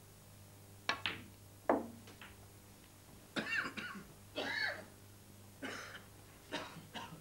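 Snooker balls clicking sharply twice about a second in as the shot is played, followed by a few coughs from the audience.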